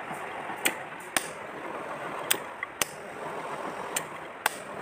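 A series of six sharp clicks or taps, spaced unevenly half a second to a second apart, over a steady hiss.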